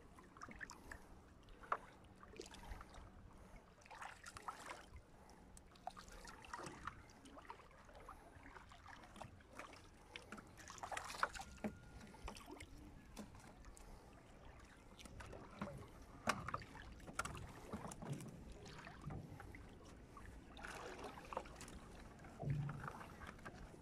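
Faint, irregular rustling, dripping and small knocks of a wet gill net, with its floats and caught fish, being hauled hand over hand over the side of a boat into a plastic bucket.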